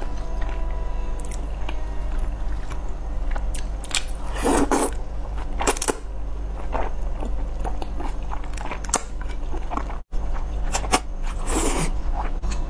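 Close-miked eating of thick, spicy fried rice noodles: wet chewing with a few louder slurps as noodles are sucked in, over a low steady hum. The sound cuts out for an instant a little after ten seconds.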